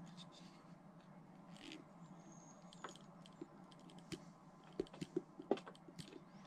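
Faint, scattered small clicks and scrapes of pliers working a metal bottle cap while a hole is punched near its rim, the clicks coming more often in the second half.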